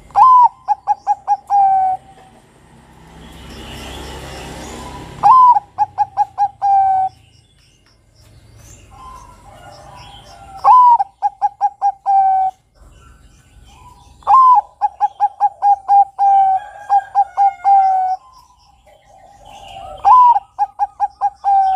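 Bangkok-type zebra dove (perkutut) cooing its song: five phrases a few seconds apart, each an upswept opening note, a quick run of about six short notes and a held closing note. A soft rushing hiss swells and fades about three to five seconds in, and faint high chirps of small birds sit underneath.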